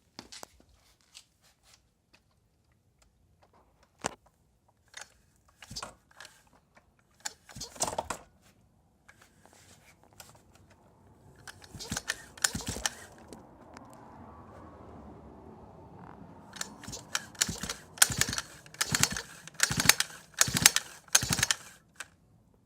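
Pocket bike's pull-start cord yanked again and again, a run of short rasping pulls about once a second near the end, after scattered clicks and knocks. The engine does not catch: the bike won't start.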